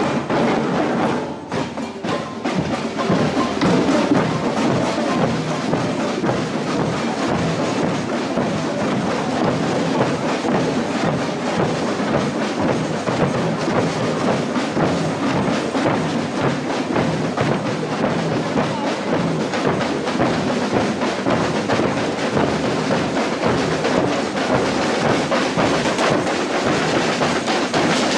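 Parade percussion band drumming a steady, driving rhythm.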